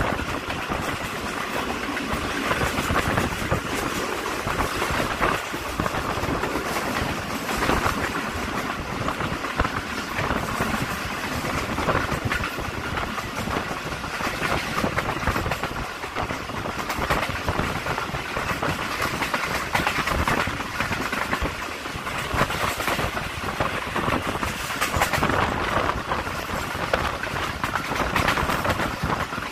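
Passenger train running at speed, heard from the carriage: a steady rush of wheels on rails and wind, with constant rattling.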